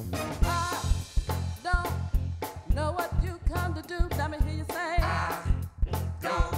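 Gospel song with a woman's lead voice singing wavering, held notes over a band: a steady bass line, keyboard and a regular drum beat.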